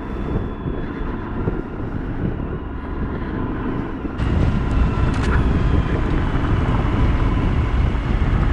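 Motorcycle riding on a gravel road: engine running under wind and tyre noise. About four seconds in, the sound abruptly turns louder and rougher, with more wind and gravel rumble.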